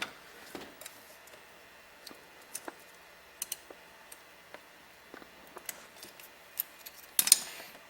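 Small metal clicks and ticks of a tool working a snap-ring retaining clip out of an automatic transmission's clutch pack, with a short, louder scrape near the end.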